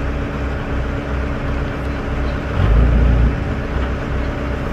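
Heavy engine running steadily with a low, throbbing drone, swelling into a louder, deeper rumble for under a second a little past halfway through.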